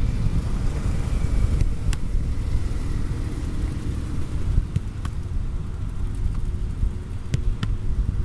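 Wind buffeting the microphone as a steady low rumble, with several sharp thuds of footballs being kicked and caught by goalkeepers.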